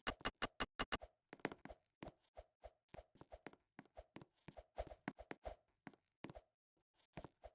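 Faint, irregular run of sharp clicks and knocks, several a second, with near silence between them.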